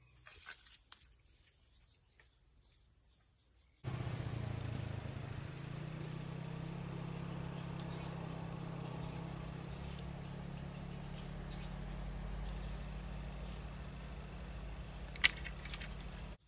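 Insects droning steadily at a high pitch over a low outdoor rumble, cutting in abruptly about four seconds in after a faint stretch. A single sharp click sounds shortly before the end.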